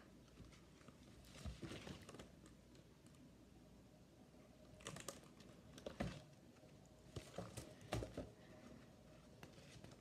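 Faint handling of a Braille picture book: scattered soft taps and rustles of the pages being touched and moved, in a quiet room.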